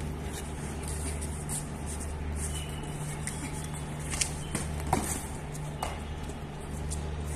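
Three sharp knocks of practice swords striking during a sparring exchange, about four to six seconds in, over a steady low background hum.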